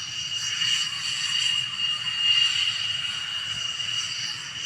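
Jet fighter engines running with a steady high-pitched whine over a low rumble.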